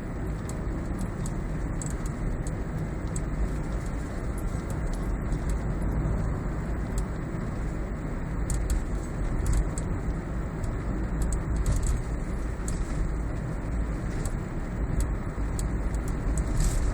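Steady road and drivetrain rumble inside a Toyota Prius cabin, with irregular light high-pitched ticks and rattles: the abnormal noise coming from behind the dashboard below the instrument cluster.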